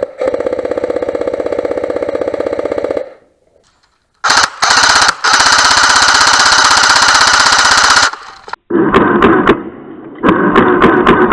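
CYMA AKM electric airsoft gun firing long full-auto bursts, a fast, even rattle of shots over the gearbox whine: one burst of about three seconds, then after a short pause a louder, longer one of about four seconds. Less regular clattering follows near the end.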